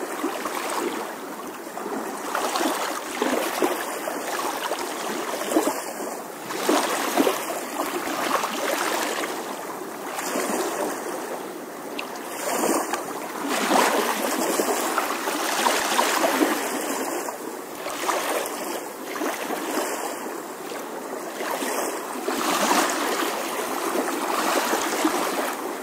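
Steady rush of running water, swelling and easing a little in loudness.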